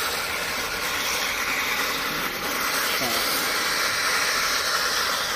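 A steady hissing noise with no clear beat or tone.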